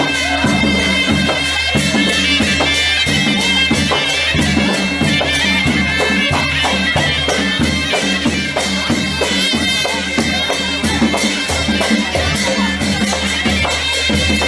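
Traditional music: a reed wind instrument playing a melody over a steady drone, with a drum beating regularly throughout.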